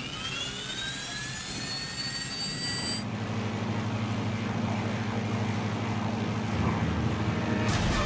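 Engine sound effects: a whine rising in pitch for about three seconds breaks off into a steady low drone, with a brief whoosh near the end.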